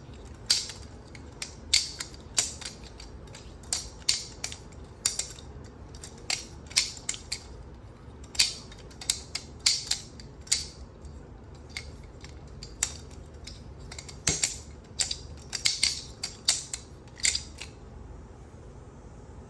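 3D-printed balisong (butterfly knife) being flipped: its plastic handles clack and click against each other and the blade in quick, irregular runs, stopping a couple of seconds before the end. The clacking is the crisp flipping sound that is described as a really nice ASMR sound.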